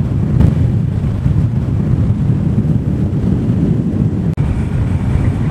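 Steady low rumble of a vehicle on the move, with wind buffeting the microphone.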